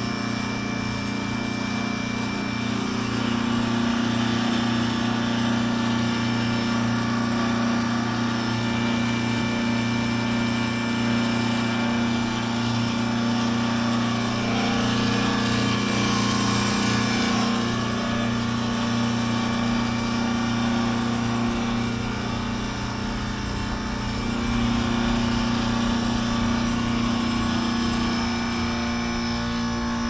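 A 2003 AirEase Concept 1000 heat pump's outdoor unit running through a defrost cycle: the compressor gives a steady hum with several held tones, and a hiss swells up for a few seconds about halfway through.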